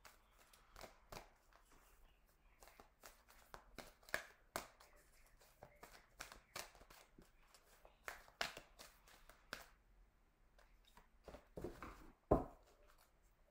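Tarot deck being shuffled overhand by hand: faint, irregular flicks and slaps of cards dropping onto the pile, with a sharper slap about twelve seconds in.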